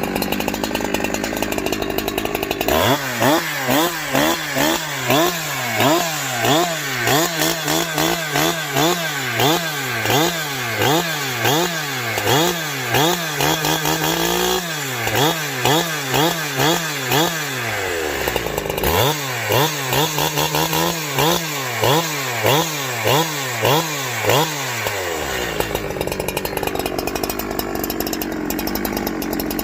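Farmertec Holzfforma G372XP two-stroke chainsaw idling, then blipped to high revs and back about once a second for some twenty seconds, with a short break midway, before settling back to idle near the end. The newly assembled saw is warming up and picks up on the throttle without bogging.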